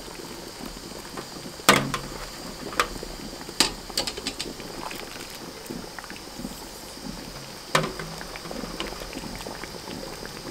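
Water in a boiling water bath canner bubbling steadily. About five sharp clinks and knocks sound as glass pint jars are lifted out with a jar lifter and set down, the loudest about 2 s and about 8 s in.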